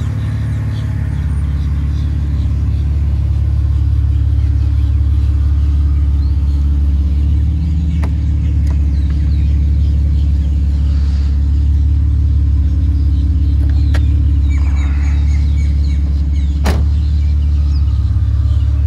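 The 3.4-litre AMG 24-valve straight-six of a 1991 Mercedes-Benz 300TE idling steadily, a low, even rumble, with a few sharp clicks in the middle and near the end.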